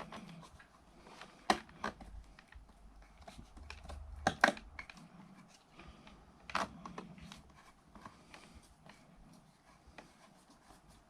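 Clicks, knocks and scrapes of a metal socket faceplate and its fixing screws being handled against the wall back box as the screws are worked into place, with the loudest knock about four and a half seconds in. The screws are not biting in the back box's thread.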